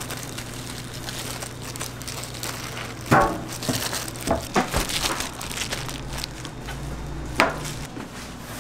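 Thin plastic food-prep gloves rustling and crinkling as hands spread croquette filling on bread slices and press them together. There are a few sharp knocks against the stainless steel work surface: the loudest about three seconds in, a quick cluster a second later, and one more near the end. A steady low hum runs underneath.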